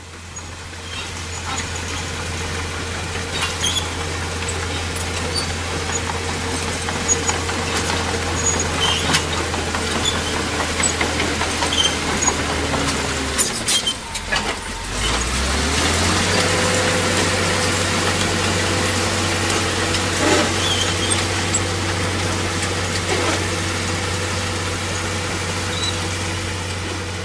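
Heavy diesel construction machinery engine running steadily, with scattered metallic clanks. About halfway through its note drops, then rises back up to speed over a couple of seconds.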